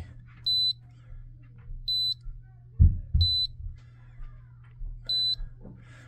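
Heat pump controller keypad beeping as its buttons are pressed: four short, high single-pitch beeps spaced a second or so apart. Underneath runs a steady low hum, with a brief low thump about three seconds in.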